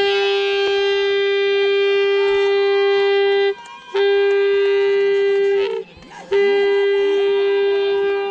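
A horn blown in three long, loud blasts on one steady pitch, with short breaks between them; the second blast bends slightly upward as it ends.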